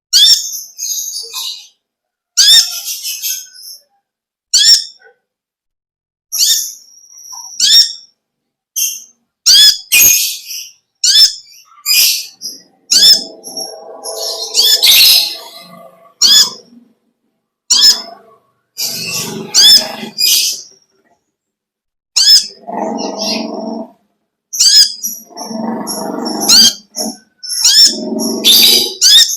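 A kolibri ninja sunbird singing loudly in a series of sharp, high chirps and short phrases. In the second half it adds several longer, harsher chattering passages, the lovebird-style 'ngekek' chatter it is kept for.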